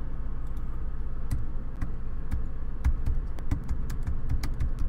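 Typing on a computer keyboard: a dozen or so irregular key clicks over a steady low hum.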